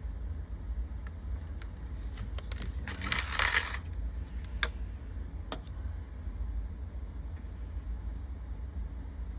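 Handling of a small die-cast toy car: a few light clicks and a brief rustling scrape about three seconds in, over a steady low hum.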